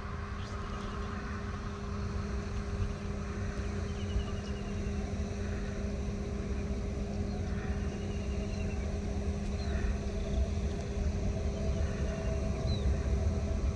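Boeing 747 on approach in the distance: a steady low rumble of its engines, slowly growing louder.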